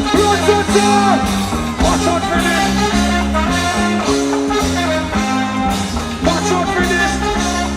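Live reggae band music with a heavy bass line stepping through a repeating pattern of notes and a voice singing over it.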